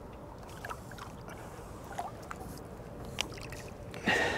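Small splashes and lapping water from a large threadfin held alongside a boat, then a louder splash with water streaming off as the fish is lifted out, about four seconds in.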